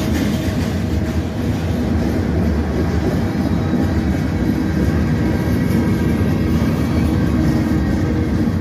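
Freight cars of a CN freight train rolling past close by: a steady, loud rumble of steel wheels on the rails.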